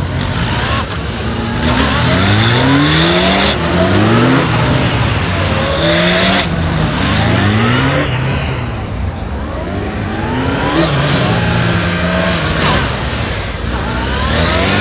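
Police motorcycle engine revving up and falling back again and again as the rider accelerates out of and brakes into the tight corners of a slalom course.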